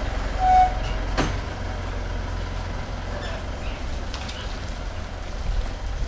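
Pickup truck engine running with a steady low rumble as the truck reverses slowly out of a driveway. A short beep comes about half a second in and a sharp click about a second in.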